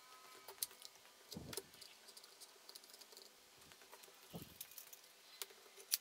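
Bessey bar clamps being set on a glued wooden block and tightened: scattered light clicks and taps of the clamp hardware, with a few soft knocks against the wood and bench, the sharpest click near the end.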